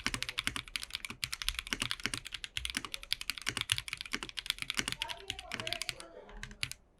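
Fast typing on a TKC Portico custom mechanical keyboard with linear switches: a dense run of keystroke clacks that thins out and stops briefly about five to six seconds in, then a few more keystrokes.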